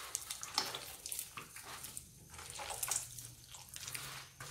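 A hand squeezing and kneading sticky scalded tapioca-starch cheese-bread dough with a raw egg in a plastic bowl, giving irregular wet squelches and smacks as the egg is worked in.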